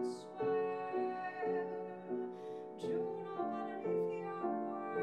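Steinway piano playing a slow melody, moving from note to note about twice a second.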